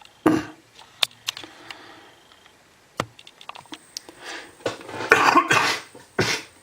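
A man coughing from an illness, once near the start and then several times in quick succession near the end, with a few light clicks in between.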